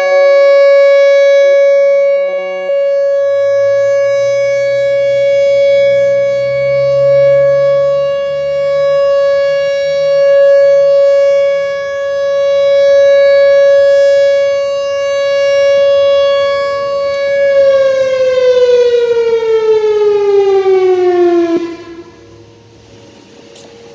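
Whelen Vortex electronic outdoor warning siren sounding its steady full-alert tone, one held pitch with its loudness swelling and fading every few seconds. About 18 seconds in it winds down in a falling pitch, then cuts off at about 22 seconds, which is the end of the alert.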